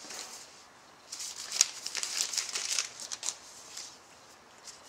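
Foil wrapper of a trading-card pack crinkling and tearing as it is opened, in a dense run of crackles from about a second in until past the three-second mark.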